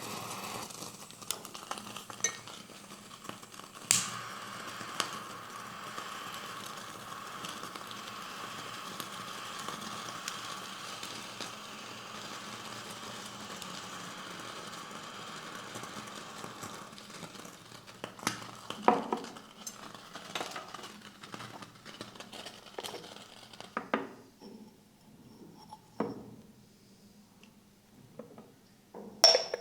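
A steady rustling hiss for roughly the first half, then a scatter of sharp clinks and taps of small hard objects being handled.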